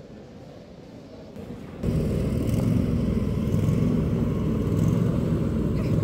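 Faint room tone, then, after a cut about two seconds in, a loud steady low rumble of an idling engine starts abruptly.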